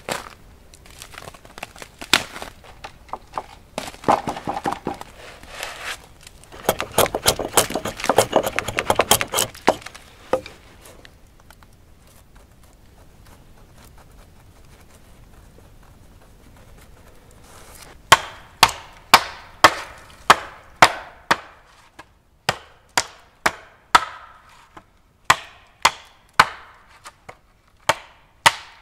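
Footsteps crunching and rustling through snow and dry forest litter, then a hatchet chopping into the base of a thin standing tree: sharp wooden strikes about two a second, with a brief pause partway through.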